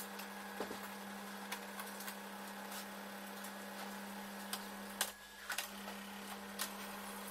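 Eumig R2000 film projector running with a steady hum, while its control-panel buttons and knob are clicked; about five seconds in a louder click cuts the hum briefly, and it comes back after a few more clicks.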